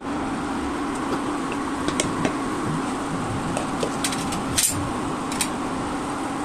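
Maggi noodles and vegetables simmering in broth in a pan on an induction cooktop: scattered pops and crackles of bubbling liquid, with a small cluster about two-thirds of the way in. Under them runs the steady hum of the cooktop's cooling fan.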